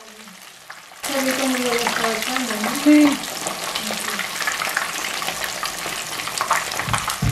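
Two whole mojarra fish frying in very hot oil in a pan: a loud, steady crackling sizzle that starts abruptly about a second in.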